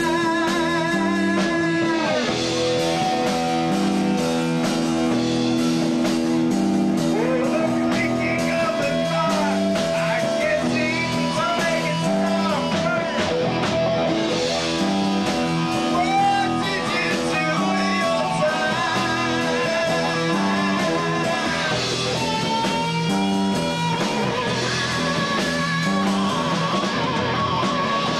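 Live rock trio playing: electric guitar leads with bent, wavering notes over bass guitar and a drum kit keeping a steady beat.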